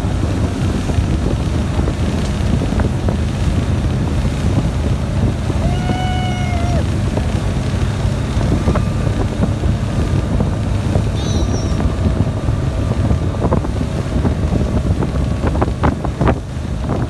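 Motorboat running steadily at towing speed, its engine hum mixed with rushing wake water and wind buffeting the microphone. About six seconds in, a short held tone rises briefly above the noise.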